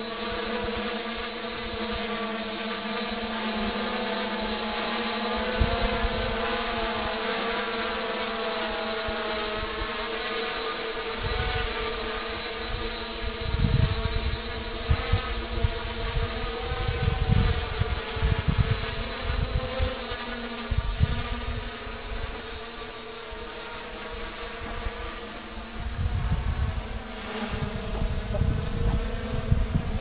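Hexcopter's six electric motors and propellers buzzing overhead, the pitch wavering as it holds against strong wind. Wind gusts rumble on the microphone in bursts from about five seconds in.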